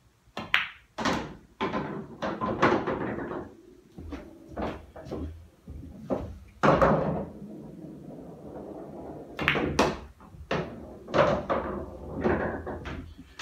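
Pool shots on a bar table: a series of sharp clacks of the cue tip on the cue ball and ball on ball, with thuds and rolling rumbles as balls drop into the pockets and run through the table.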